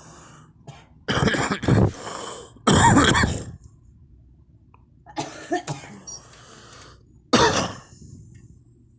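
A girl coughing in a fit of several bursts after smoking, the loudest about three seconds in and a softer run of coughs about five to six seconds in.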